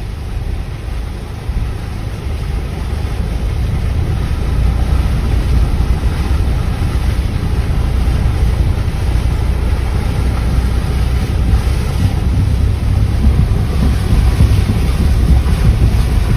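Flash-flood water rushing, with wind buffeting the microphone. The noise swells over the first five seconds, then holds steady.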